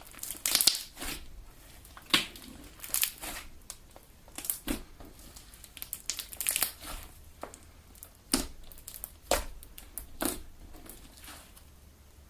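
Homemade Elmer's galaxy slime being kneaded and squeezed by hand, giving irregular sharp crackles and pops, about a dozen in all, as air pockets in the slime burst.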